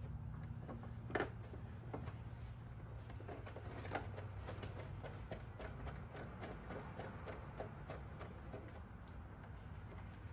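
Plastic side panel of a Kawasaki Z H2 being handled and pressed into place: a sharp click about a second in, another near four seconds, and a run of small light clicks and ticks in between and after.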